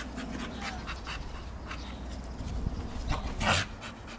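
Staffordshire bull terrier panting in quick, short breaths, with one louder, harsher breath about three and a half seconds in.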